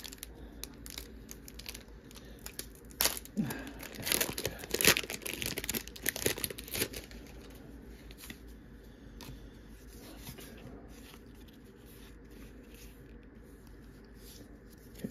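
Foil booster pack wrapper being torn open and crinkled, a run of sharp crackling tears and rustles that dies away about seven seconds in.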